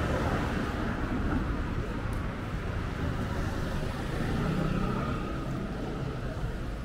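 Street ambience: a steady rumble of road traffic, swelling a little about two-thirds of the way through.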